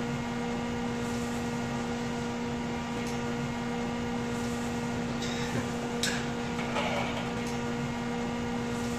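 Steady machinery hum in a ship's galley, one low tone with fainter overtones, under a light noise. A few faint knocks and scrapes of metal utensils against a wok come between five and seven seconds in, as pork belly is turned over in boiling water.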